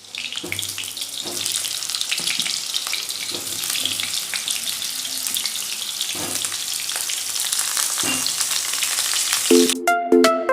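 Chicken frying in hot oil in a pan: a steady, dense sizzle and crackle. Music with a beat comes in near the end.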